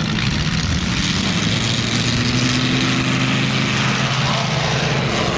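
Engine and propeller of a large-scale radio-controlled P-47 Thunderbolt model running steadily at high power through its takeoff run.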